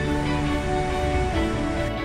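Background music: soft, tender instrumental music with held notes.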